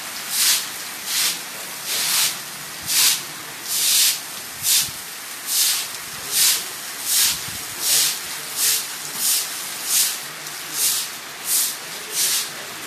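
A broom sweeping in regular swishing strokes, about four strokes every three seconds.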